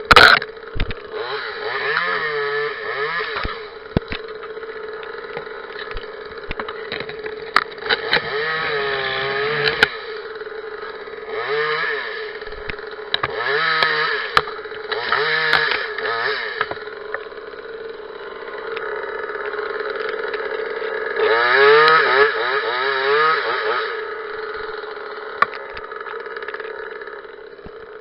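Parker top-handle two-stroke chainsaw idling and revved again and again in short bursts, each rising in pitch and dropping back to idle, about seven times.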